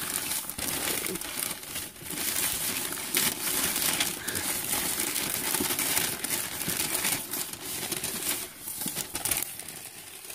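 Brown packing paper crumpling and crinkling as hands pull it off and unwrap a boxed figure, a dense run of crackles that thins out near the end.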